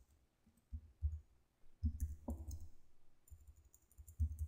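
Computer keyboard keys being typed in short, irregular runs of clicks, each with a dull thud beneath it, separated by brief pauses.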